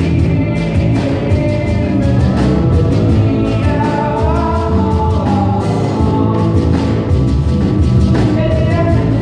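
Live band music heard from the audience seats: drum kit, electric bass and keyboards playing, with a voice singing.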